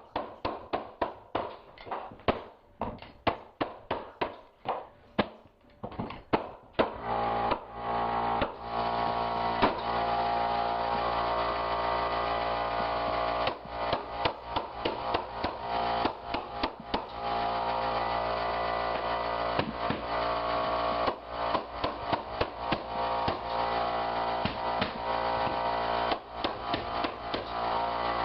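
Mallet strikes on a pneumatic flooring stapler driving staples through hardwood boards, sharp knocks in quick runs. About seven seconds in, an air compressor starts and runs with a steady hum under further strikes.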